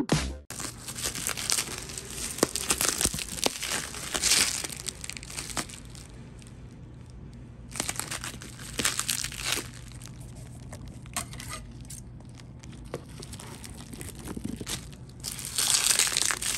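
Plastic bubble wrap crinkling and rustling as hands pull it off a cardboard box, in uneven bursts with louder stretches a few seconds in, around the middle and near the end.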